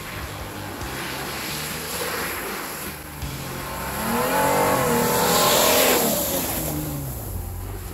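A Jeep Cherokee drives down a snowy trail and passes close by, its engine note building to a peak about five to six seconds in and then fading, with tyre noise on the snow as it goes past.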